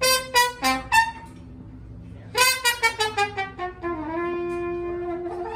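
Saxophone in a live jazz combo playing four short staccato notes, then a quick falling run of notes, ending on a long held note.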